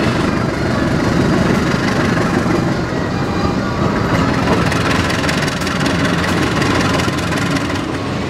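Diesel-electric locomotive engine running as it hauls a passenger train slowly along the station tracks, a steady rumble.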